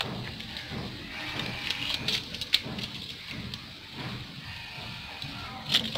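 Fish being cut on a bonti, a curved blade fixed upright on a stand: irregular clicks, knocks and scrapes as the fish is drawn against the blade. Sharper clicks come around two seconds in and again near the end.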